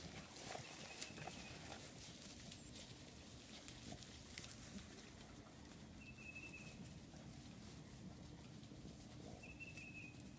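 Beagles working through dry leaf litter and brush: faint rustling and small twig snaps, with three short, thin, high whines.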